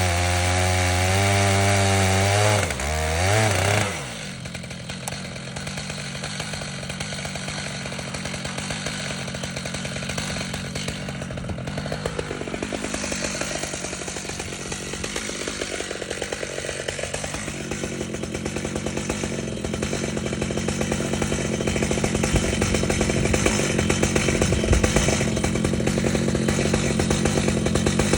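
Stihl MS 881 two-stroke chainsaw running at full throttle in a chainsaw mill, ripping along an elm log. The engine note is steady for the first few seconds, wavers, then drops to a lower, rougher cutting sound. Its pitch sags midway and recovers.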